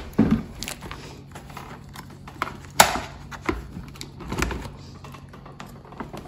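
Scattered plastic clicks and knocks of a refrigerator door and its hinge being handled while the doors are lined up at the top, with one sharper click about three seconds in. A faint steady low hum runs underneath.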